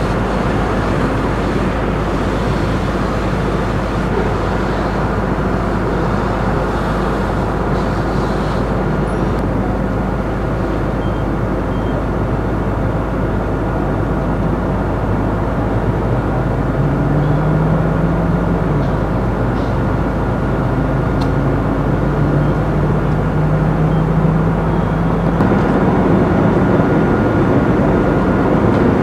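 Fire engine's engine running steadily at the scene, a constant low rumble with a faint steady whine above it. In the second half a few slow rising engine notes come and go.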